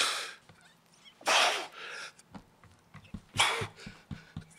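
A man crying close to a microphone: three loud, sharp, breathy sobs about a second and a half apart. A faint, quick low tapping runs through the second half.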